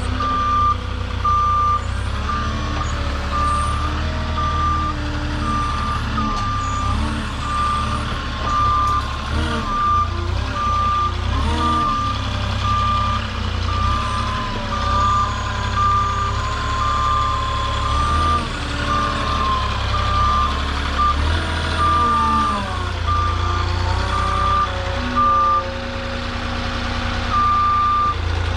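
Truck-mounted forklift reversing: its backup alarm sounds a steady run of regular beeps, with a short pause near the end, over its running engine, whose pitch rises and falls as it manoeuvres.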